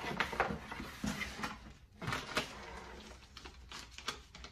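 Cardboard shipping box being opened by hand: the flap lifted and paper slips rustling, in a few short crinkles and scrapes.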